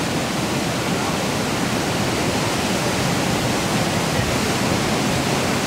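Floodwater pouring over a dam and churning in the turbulent boil below it, a steady unbroken rush.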